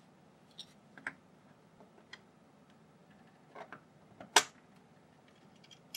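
Scattered clicks and taps of 3D-printed plastic parts and metal rods being handled and fitted together, with one sharper, louder click about four and a half seconds in.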